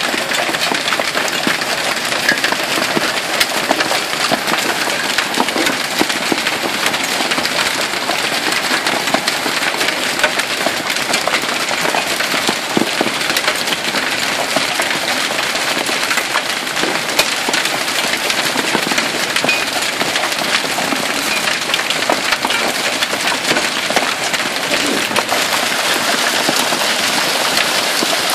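Hailstones pelting down in a steady, dense clatter of countless small impacts over a rushing hiss.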